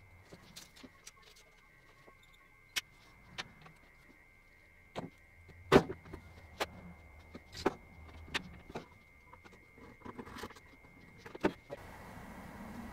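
Scattered clicks and knocks of a Marlin .22 rifle's metal parts being handled and fitted back together on a wooden workbench, the loudest knock about six seconds in. A faint steady hiss comes in near the end.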